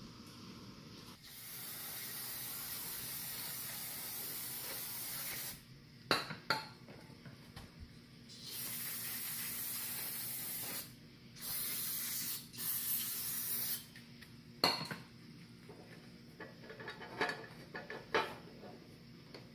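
Aerosol carburettor cleaner hissing out of its straw into a lawnmower carburettor in several long sprays, the first about four seconds long, the rest in quick succession. A few sharp knocks and small clicks come between and after the sprays.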